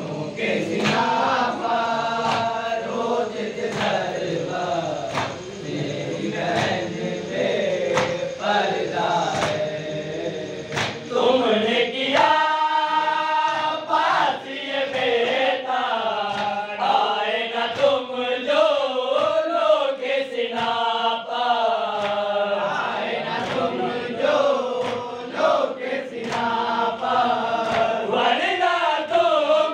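A group of men reciting a noha, a Shia mourning lament: a lead voice chants into a microphone and the others join in unison. Sharp slaps keep time about once a second, mostly in the first half, typical of matam, hands beating on chests.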